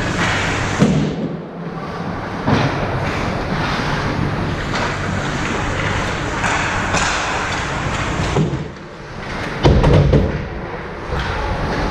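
Ice hockey rink noise picked up by a GoPro: a continuous scraping hiss with several sharp knocks and thuds, the loudest a heavy thud about ten seconds in.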